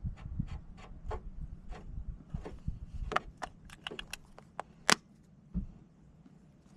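A string of irregular light clicks and taps from small hard objects being handled, with one sharper click about five seconds in.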